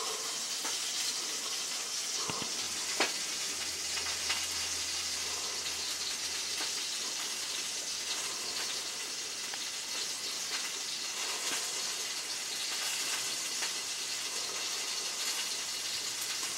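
Steady outdoor hiss with no clear source, with a couple of faint clicks or snaps about three and four seconds in.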